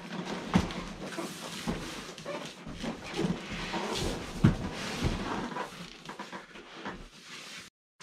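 Cardboard and packing material rustling, with scattered knocks and thumps, as the table saw's boxes are handled and unpacked; the sound cuts off suddenly near the end.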